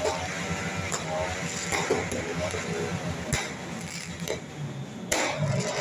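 Aerial fireworks exploding: several sharp bangs spread across the few seconds, the loudest about five seconds in, over a steady background of voices and music.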